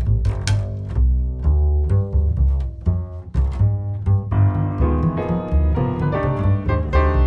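Upright double bass played pizzicato, quick plucked jazz lines in a bass solo. About four seconds in, piano chords come in under the bass.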